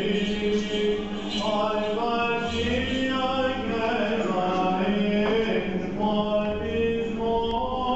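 Orthodox Byzantine chant sung by male voices: a melody moving in steps over one low note held steadily beneath it.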